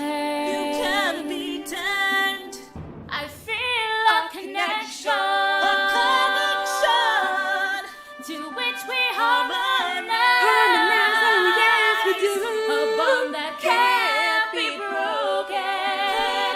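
Layered voices singing a melody with little or no instrumental backing, a capella style.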